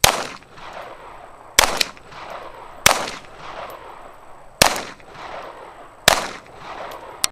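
About seven pistol shots fired at an irregular pace, two of them in quick succession, each crack followed by a short echo off the range.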